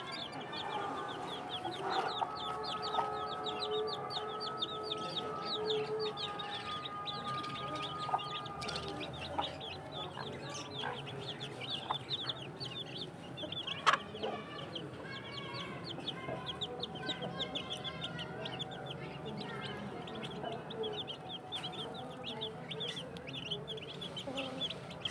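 Chicks peeping constantly in rapid, high chirps while their mother hen clucks as they forage. A single sharp click about halfway through is the loudest sound.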